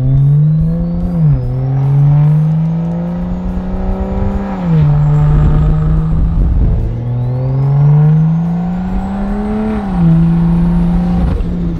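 Newly built turbocharged BMW engine accelerating hard through the gears: its note climbs and drops at each upshift, about a second in, near five seconds and near ten seconds. A high whistle from the turbo rises in pitch over the later pulls.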